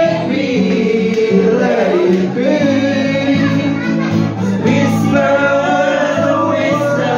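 Live singing accompanied by a strummed acoustic guitar.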